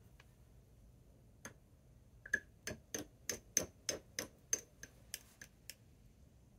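A pen tip clinking against a small glass water jar, about a dozen light, ringing taps at roughly three a second, as the pen is swished in the water to rinse the ink off.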